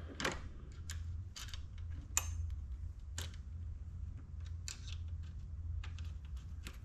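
Irregular small metal clicks and ticks as a nut and hardware are handled and a nut is threaded by hand onto the bolt of a pannier bracket.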